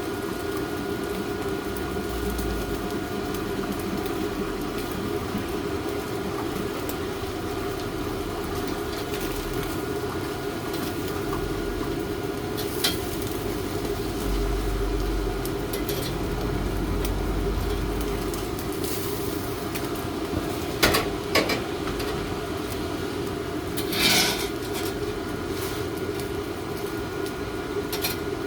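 Steady droning hum with a few sharp clinks, a pair about 21 seconds in and one about 24 seconds in.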